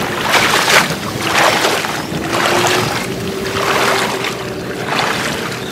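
Shallow floodwater sloshing and splashing as people wade through a flooded rice field, with a swish about once a second as their legs and a load pushed along the surface drive through the water. A faint steady drone runs underneath.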